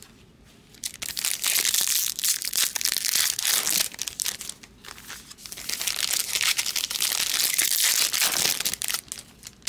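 Trading-card pack wrappers crinkling and cards being handled: a dense, crackling rustle that starts about a second in and goes on with brief lulls.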